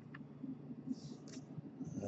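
Faint rustle and a few light clicks of a stack of baseball trading cards being handled and squared up in the hands.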